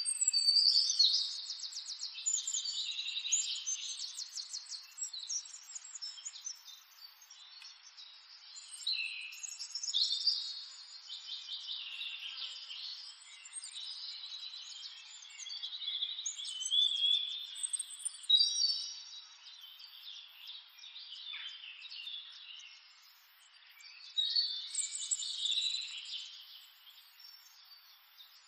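Wild birds singing: a run of high chirps and trills that come and go in several louder spells.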